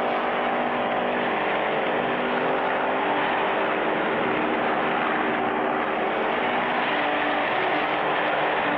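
Race car engine running at speed, a steady drone whose pitch steps up and down a few times.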